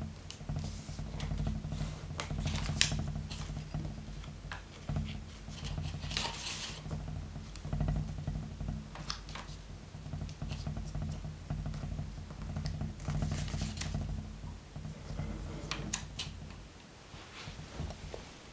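Elephant hide paper rustling as a long strip is folded by hand and its creases pressed flat, in short, irregular crinkles and scrapes. A low steady hum runs underneath and stops near the end.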